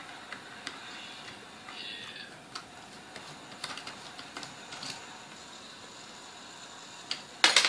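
Small metallic clicks and scrapes of a screwdriver working the speed-control parts loose from the end of a Sunbeam Mixmaster Model 11 motor housing, with a louder cluster of clicks just before the end.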